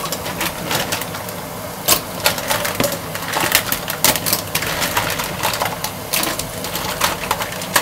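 Fresh mussels dropped by hand into a steel pot of cooked vegetables: their shells clack against each other and the pot in quick, irregular clicks over a steady hiss.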